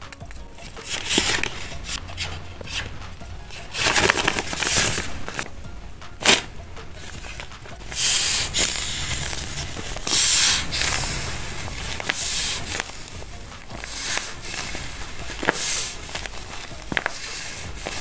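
Paper and tape crinkling and rustling in irregular bursts as hands handle a paper sticker, then press and squeeze a tape-covered handmade paper squishy, with a few sharp crackles.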